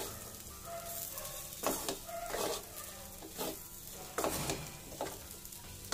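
Spatula stirring and scraping spiced potato stuffing around a kadhai, about four strokes against the metal, with the oil sizzling underneath.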